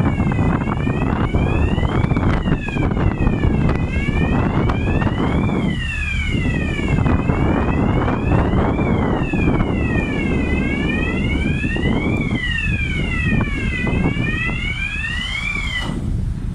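A wailing siren sweeping up and down in pitch over and over, with overlapping out-of-step wails, cutting off shortly before the end. A steady low rumble runs underneath.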